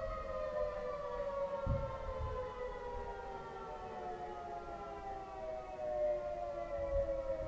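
3T22A outdoor warning siren sounding a chord of two tones that slowly glides down in pitch. A few low thumps sound underneath, about two seconds in and again near the end.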